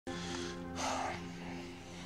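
Background score of sustained, held low tones, with a brief airy swell about a second in.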